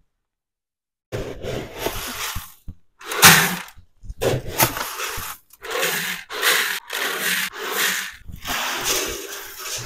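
White plastic feed buckets being handled: repeated rustling and scraping, with short pauses between, the loudest about three seconds in.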